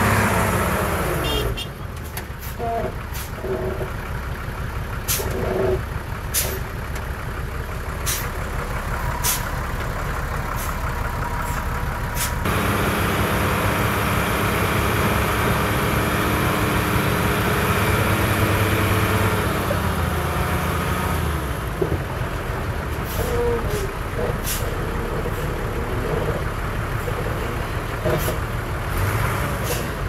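Diesel engine of heavy earth-moving machinery running under work, with sharp metallic clanks through the first part. A steadier, stronger engine drone takes over a little before halfway, and a few more clanks come later.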